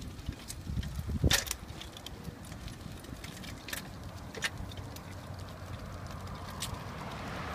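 Chalo Sulky FireAnt dog-powered tricycle rolling along a concrete sidewalk: a low rumble with scattered clicks and rattles, the loudest about a second and a quarter in. Near the end a car's tyre noise rises as it approaches on the adjacent road.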